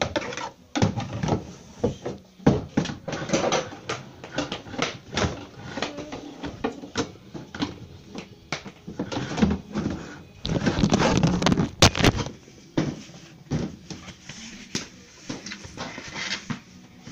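Irregular knocks, clatters and thumps in a small room, with a denser burst of rattling noise about ten to twelve seconds in.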